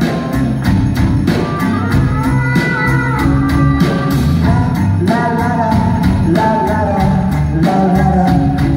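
Live rock band playing a song, with a steady drum beat, guitars and a sung melody, heard from among the audience in a concert hall.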